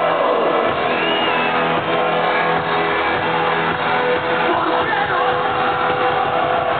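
Live band playing loudly, with a vocalist singing into the microphone over the band.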